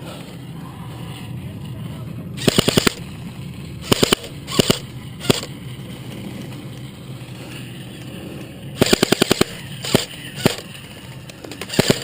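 Airsoft electric rifle firing close by. A rapid burst comes about two and a half seconds in, then three single shots, another rapid burst near the middle, two more single shots, and a short burst at the end.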